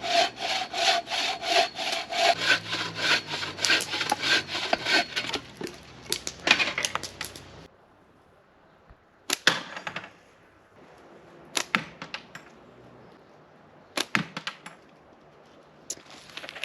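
A hand saw cutting wood with quick, even back-and-forth strokes for about seven seconds, which stops abruptly. After that come a few separate sharp knocks of wood.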